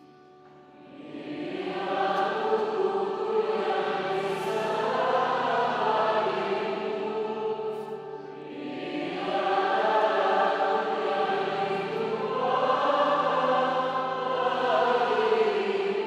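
A choir and a female psalmist singing a sacred piece in two long swelling phrases, with held low notes beneath. The first phrase ends with a brief easing about halfway through.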